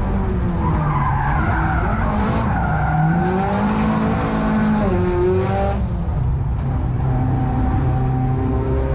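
Car engine heard from inside the cabin, its revs falling and then climbing again through a tight bend, with tyres squealing as the car slides, strongest in the first few seconds.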